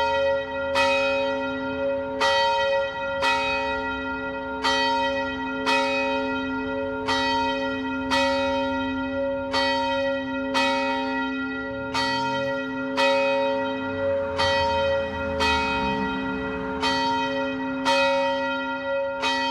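A single church bell rung steadily, striking about every 1.2 seconds in a slightly uneven alternating rhythm, each stroke ringing on into the next.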